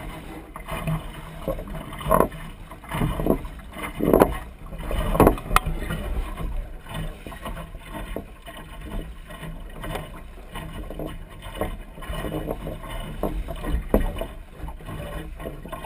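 Water slapping and splashing against the hull of a small sailing dinghy under way, with wind rumbling on the microphone. The louder splashes come about once a second for a few seconds early on, then settle into a steadier wash.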